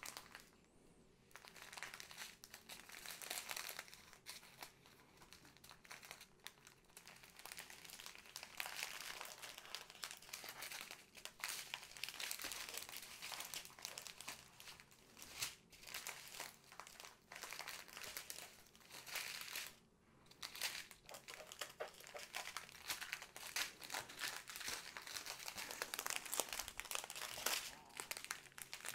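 Clear plastic wrapping and small plastic bags of diamond-painting resin drills crinkling continuously as they are unwrapped and handled, with a short pause about two-thirds of the way through.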